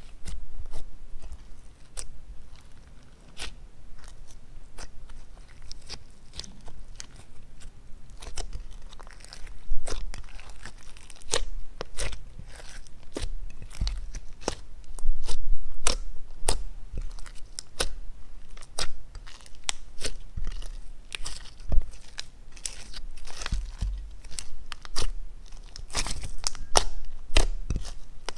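Slime being kneaded, folded and stretched by hand in a glass baking dish: a dense, irregular run of sticky clicks, pops and crackles, with soft low thuds as it is pressed against the dish.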